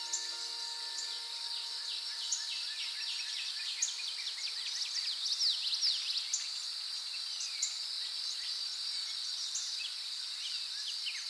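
Nature ambience: a steady, high-pitched insect chorus with a bird calling in quick runs of down-slurred notes, thickest about four to six seconds in and again near the end. A few held notes of background music fade out in the first two seconds.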